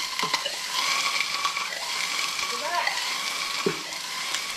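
Oxyacetylene cutting torch flame hissing steadily with a faint whistling tone, heating a seized steel cylinder pin.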